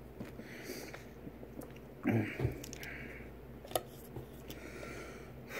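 A man drinking soda from a plastic bottle, with sipping, swallowing and breathing through the nose. A short throaty sound comes about two seconds in, and a light click a little before four seconds in.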